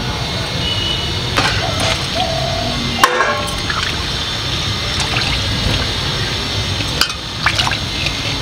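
Bottle-gourd stems being cut against the blade of a boti, a curved floor-mounted kitchen blade, giving a few short crisp snaps. They sit over a steady rushing background noise.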